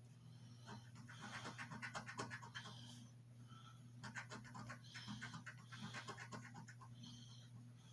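A coin scratching the scratch-off coating from an instant lottery ticket on a table: faint bursts of quick rasping strokes, densest in the first few seconds and again in the middle, over a steady low hum.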